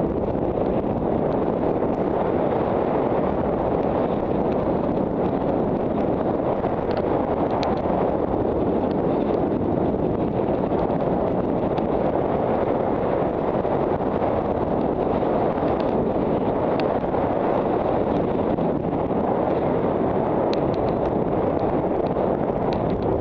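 Steady rushing wind on the microphone of a camera worn by a skier descending fast through deep powder, with a few faint ticks.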